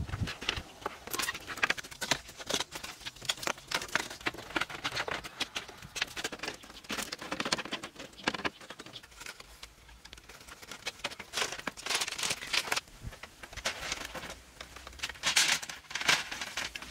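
Bamboo poles and slats being handled and fitted into a bamboo frame: an irregular run of light clicks, knocks and rustles, with busier clusters of clatter about halfway through and near the end.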